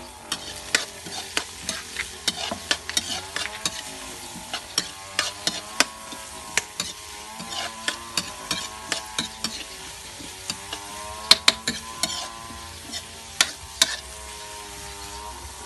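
Metal spatula scraping and knocking against a wok with many sharp clicks, while chopped aromatics sizzle in hot oil.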